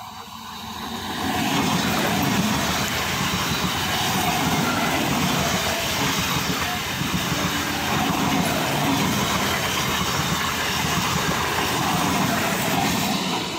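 Electric multiple unit (EMU) local train passing close at speed. The noise builds over the first second or two as the train arrives, holds as a loud, steady rush of wheels running on the rails while the coaches go by, and begins to fall away at the very end as the last coach passes.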